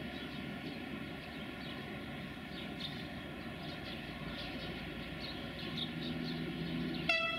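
Freight train of loaded log wagons rolling slowly, a steady low rumble with faint short high squeaks. A low steady hum joins about six seconds in, and a sudden high pitched tone with overtones cuts in just before the end.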